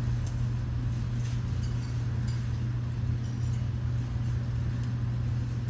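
A steady low hum throughout, with a few faint, light clicks scattered over it.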